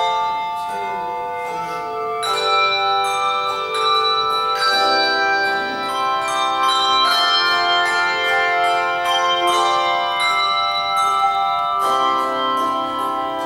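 Handbell choir playing an Irish medley: many bells struck together in chords, each note ringing on and overlapping the next.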